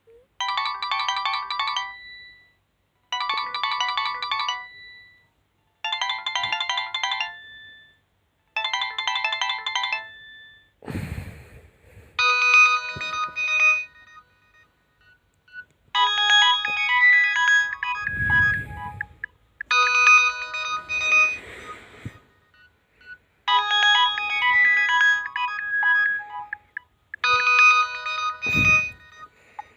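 Nokia 2680 slide mobile phone playing ringtones: a short electronic tone pattern repeats four times, then after a low thump a different melody loops about every four seconds, with a few more low thumps in between.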